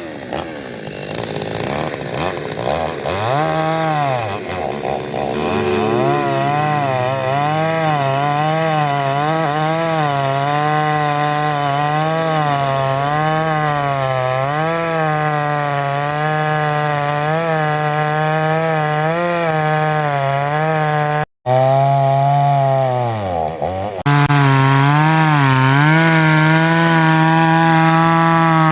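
Toyama chainsaw cutting through a log, its engine running at high speed with the pitch wavering up and down as the chain bites into the wood. The sound cuts out for an instant about two-thirds of the way through, the engine speed sags briefly, then it runs on steadily and a little louder.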